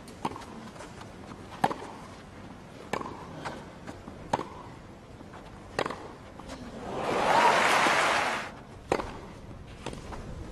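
Tennis ball struck back and forth by rackets in a baseline rally on a grass court: a sharp pop about every one and a half seconds. A brief swell of crowd noise rises and falls about seven seconds in.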